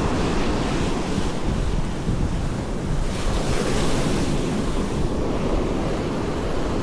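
Ocean surf washing steadily onto the shore, with wind buffeting the microphone as a low rumble.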